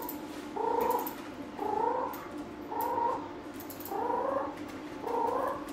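Kitten giving a short, chicken-like call about once a second, five times, each call rising slightly in pitch. The sound comes from a dilated esophagus (megaesophagus), which the vet thinks most likely presses on the larynx and windpipe.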